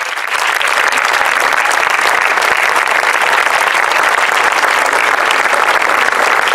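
A crowd applauding: dense, steady clapping that swells to full strength within the first half second and holds.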